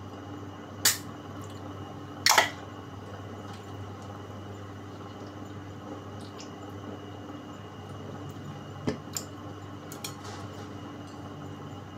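Pull-tab drink can being opened: a sharp click about a second in, then a louder pop with a short fizzing hiss just after two seconds. Near the end, a couple of light knocks as the can is set down on the table.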